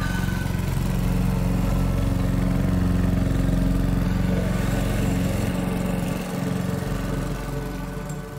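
Motor mower engine running with a steady drone that grows louder, holds, then fades away as the mower passes.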